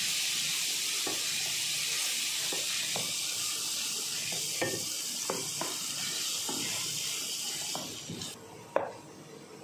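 Chopped onion, garlic and ginger-garlic paste sizzling in hot oil in a stainless steel pan, with a wooden spatula scraping and knocking against the pan as it stirs. The sizzle falls away about eight seconds in, and a single sharp click follows.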